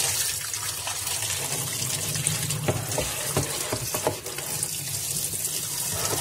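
Water running and splashing into a semi-automatic washing machine's tub, with a few light knocks about halfway through.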